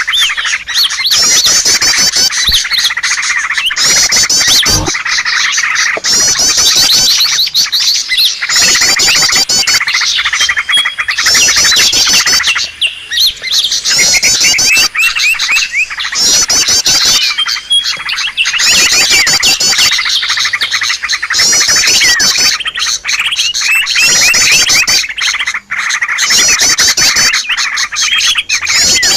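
Dense chorus of small songbirds chirping and trilling loudly: a bird-luring call track. Fast high trills come in bursts every couple of seconds over steady chattering.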